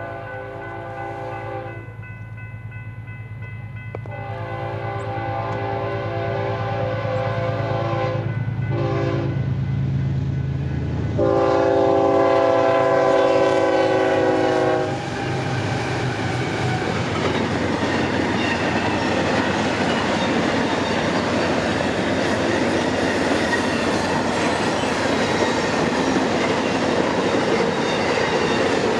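Approaching train's locomotive air horn sounding several blasts at a grade crossing, the last one long and the loudest, over a growing diesel rumble. From about halfway in, the train passes close by with a loud steady rush and wheel clatter on the rails.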